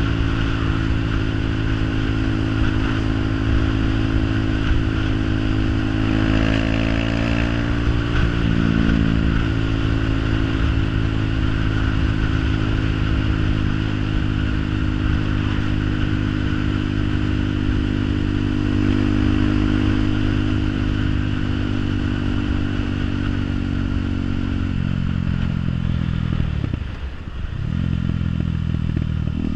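An engine running steadily; its pitch shifts briefly about six seconds in, then falls sharply and climbs back up near the end.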